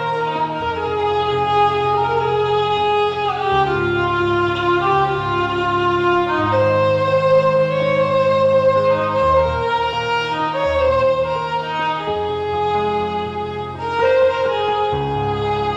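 Background music: a slow violin melody of long held notes over sustained low notes that shift every few seconds.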